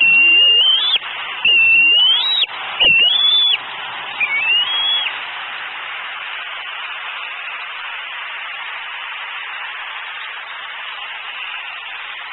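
Young bald eagle near fledging age giving high, drawn-out whistled begging squeals, four in a row, each about a second long and rising at the end, as food arrives. After about five seconds the calls stop, leaving a steady hiss.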